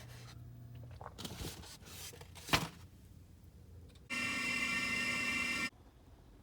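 Tools clicking and scraping on plumbing fittings, with a sharp knock about two and a half seconds in. Then, about four seconds in, a burst of water runs through a valve with a steady whistling tone for about a second and a half and cuts off suddenly.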